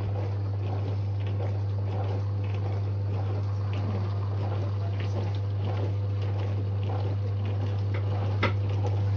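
Dishwasher running: a steady low hum from its pump motor under the swish and trickle of water inside, with a single click near the end.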